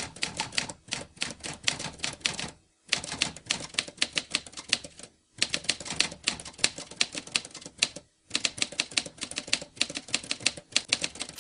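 Typewriter keys clacking in quick runs of about six strikes a second, each run broken by a short pause every two to three seconds.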